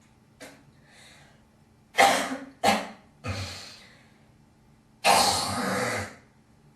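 A young woman coughing: two sharp coughs in quick succession about two seconds in, then a rough breath. Near the end comes a long, harsh hawk of about a second as she hocks up phlegm.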